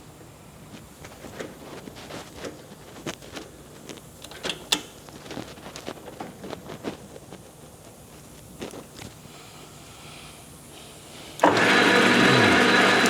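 Scattered light clicks and knocks of hands working on a 12" x 36" gap-bed engine lathe, then, about eleven seconds in, the lathe's 1-1/2 hp single-phase drive starts abruptly and runs loudly and steadily.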